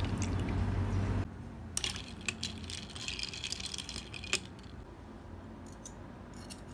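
Juice poured from a glass pitcher onto ice in a glass, stopping abruptly about a second in. Then ice cubes crackle and clink in the freshly filled glass, with a few sharp clinks against the glass. Faint clicks follow near the end.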